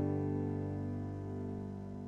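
The backing track's closing chord ringing out and slowly fading at the end of the piece, its notes wavering slightly.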